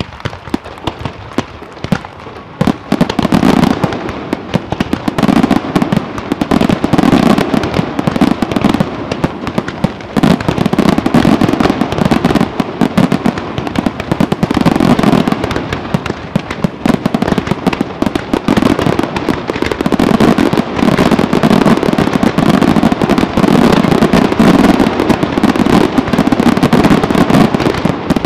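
Fireworks display: a few separate shell bursts, then about three seconds in a dense, unbroken barrage of bangs and crackle from many shells and ground-fired comets going off at once, swelling and easing in waves.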